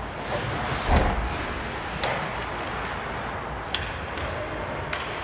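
Ice hockey play: steady rink noise with skates scraping on the ice, a low thud about a second in, and two sharp clacks near the end.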